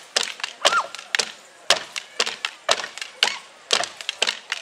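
Wooden dance sticks clacking in a steady rhythm, about two strikes a second, many of them quick double clacks.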